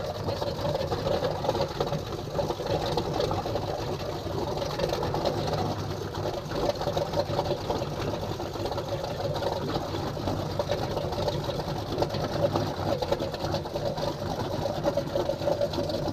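Motorboat engines idling steadily with a fast, even pulse.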